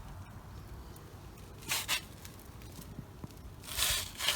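Two short scraping noises about two seconds apart, over a low steady background hum.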